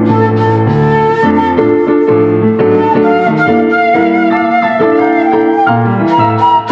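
Seven-hole 1.6-shaku shakuhachi playing a sustained, slightly wavering melody over piano chords.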